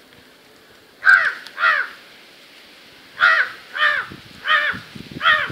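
A crow cawing: six harsh caws, a pair about a second in, then four more in an even series from about three seconds on.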